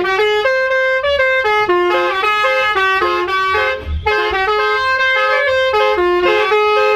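Bus 'telolet' multi-tone air horn (Basuri type) playing a melody of stepped notes, each held a quarter to half a second, with a brief break about four seconds in.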